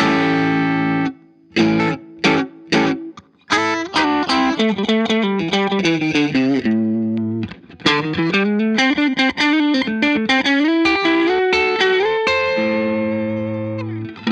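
Electric guitar played through the Boss IR-2 pedal's Fender Twin amp model with some gain added, lightly distorted: short chord stabs, then a run of picked notes, and a chord left ringing near the end.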